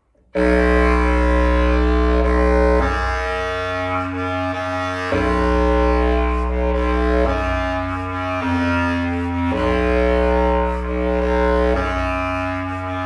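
Bass clarinets playing together in loud, sustained low chords that enter all at once and change about every two seconds.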